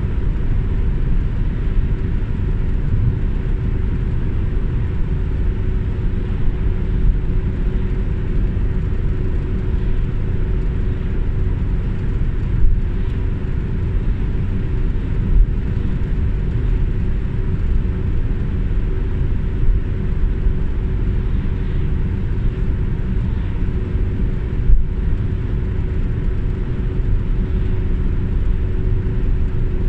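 Steady road and engine noise heard inside a moving car's cabin, with a constant low hum and a few brief thumps.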